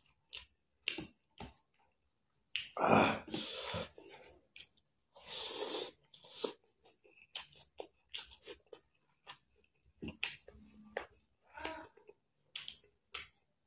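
A person chewing mouthfuls of rice and beef heart curry eaten by hand, with wet lip smacks and short clicks, and two longer, louder rushes of sound about three and five and a half seconds in.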